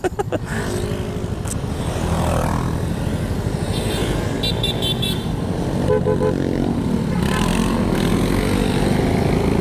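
Several small motorcycle and scooter engines running at close range, rising and falling in speed as the bikes pull away. There is a short run of beeps around five to six seconds in.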